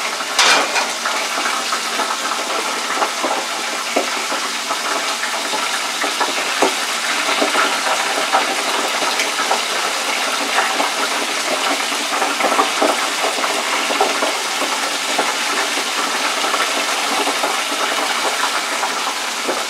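Battered tempura mushrooms frying in hot oil in an electric deep fryer: a steady sizzle, with small crackles and pops scattered through it.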